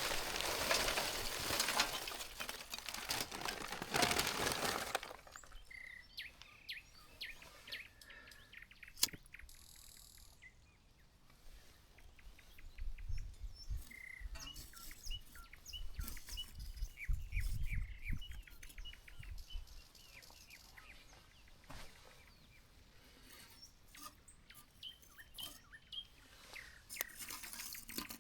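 Small birds chirping and singing in quick repeated calls and trills. A loud rushing noise covers the first five seconds.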